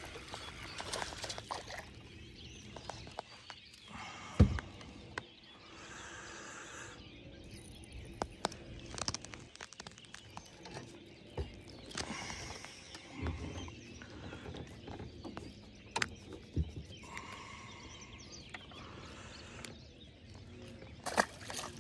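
Clicks and knocks of a spinning reel and rod being handled as a small bass is reeled in and landed, the sharpest knock about four seconds in, with birds calling faintly in the background.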